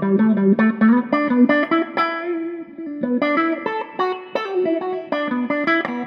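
Electric guitar played through a handmade auto-wah/envelope filter pedal: a run of picked single notes, several a second, each note's tone swept by the filter as the envelope follows the picking.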